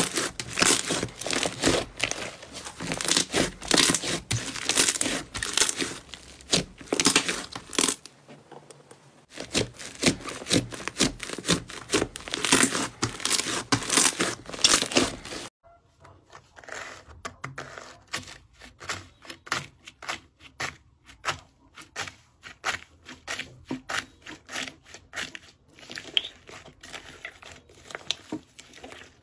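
Thick yellow slime being kneaded and pressed by hand, giving a dense run of sticky crackles and pops as trapped air bursts, with a short lull partway through. About halfway in, the sound changes abruptly to sparser, quieter clicks and pops as a second fluffy slime is squeezed.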